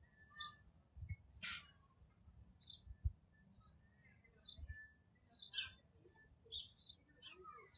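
Faint garden birdsong: small birds giving short, high chirps, about ten over the stretch, with a few soft low thumps in between.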